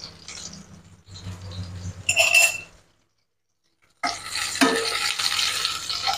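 Chilies and garlic sizzling in hot oil in a non-stick wok, with a brief sharp sound just after two seconds in. After a short silent gap about four seconds in, a wooden spatula starts stirring and scraping them, the sizzle now loud and dense.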